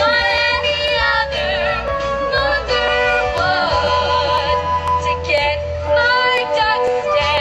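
Young female voices singing a musical-theatre song together over instrumental accompaniment with a steady bass line.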